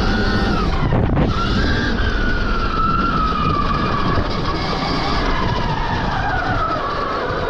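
Stark Varg EX electric dirt bike's motor and drivetrain whining at speed, over a steady rushing noise. The whine drops out briefly about a second in, then slowly falls in pitch as the bike eases off.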